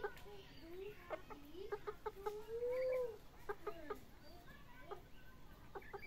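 Shamo game chickens clucking in short calls, with one longer drawn-out call that rises and then falls about two to three seconds in.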